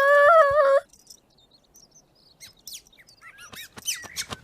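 Bird chirping: quick, high, downward-sweeping chirps that come faster and louder over the last second and a half. Before them, at the start, there is a short steady pitched tone that wavers slightly.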